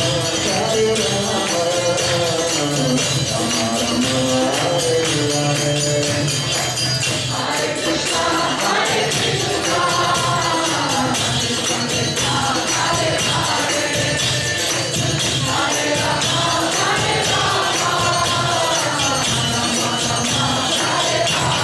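Devotional kirtan: a group of voices chanting a rising and falling melody over a fast, steady beat of jingling hand cymbals.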